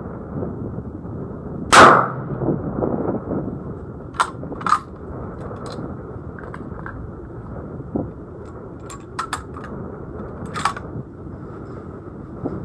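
A single loud shot from a .220 Swift rifle about two seconds in, with a short echo after it, then a few much fainter sharp cracks. A second loud shot comes right at the end.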